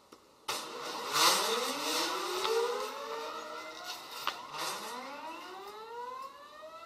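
Geared stepper motors winding the robot's wires, starting suddenly about half a second in. They give several whines that rise in pitch together as the motors speed up, in two long sweeps, with a sharp click about four seconds in.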